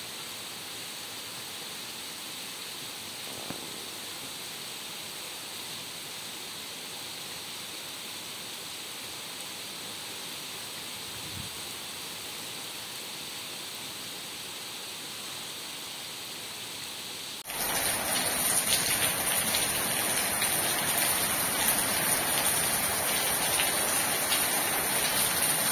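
Heavy rain falling at night, a steady hiss. About 17 seconds in it switches abruptly to a louder, closer downpour, with drops splashing close by.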